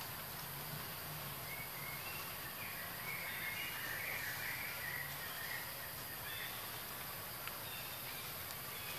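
Steady forest background hiss, with a run of short, high chirping calls from about two to six seconds in.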